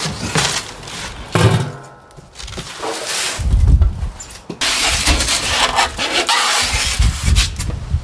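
Cardboard packing inserts scraping and rustling as they are pulled out of a black steel Pit Barrel Cooker drum, with low rumbling bumps of the drum being handled.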